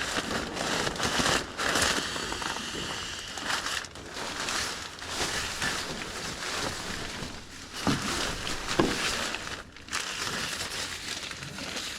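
Nylon crinkling and rustling in long stretches with short pauses between them, as an inflatable sleeping mat is blown up by mouth or with a pump sack.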